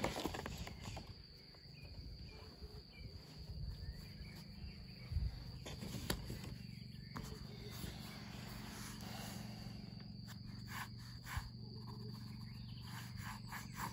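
Insects trilling steadily at one high pitch, under scattered rustles and taps of drawing paper being handled, with a cluster of short scratches near the end as a pencil works on the paper.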